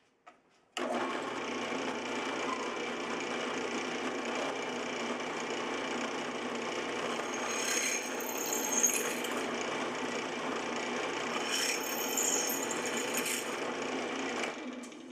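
Benchtop drill press motor switched on about a second in and running steadily while a twist drill bores into an aluminum plate. Twice, a sharper high-pitched cutting noise joins in as the bit bites into the metal. The motor is switched off near the end and winds down.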